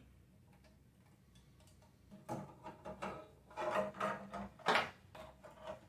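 Hands moving ribbon cables and expansion cards inside an open Amiga 2000 case: a run of rustling and plastic clattering starting about two seconds in, with one sharper knock near the end.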